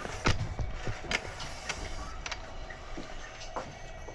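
JR Kyushu 811 series electric train rolling slowly into its stop, heard from inside the car: a steady low hum broken by irregular sharp clicks and knocks, roughly one a second.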